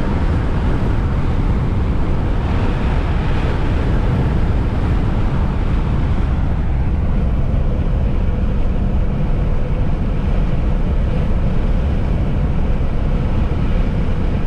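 Steady road noise and wind rush heard from inside the cabin of a moving vehicle.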